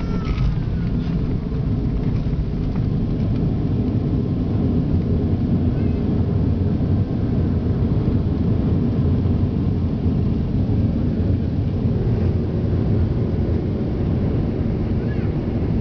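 Steady, loud rumble of an airliner's jet engines and wheels rolling on the runway after landing, heard from inside the passenger cabin.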